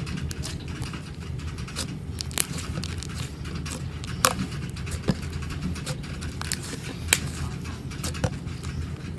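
Brown slime squeezed and kneaded by hand, giving off irregular sticky clicks and pops as air pockets burst, two of them sharper than the rest.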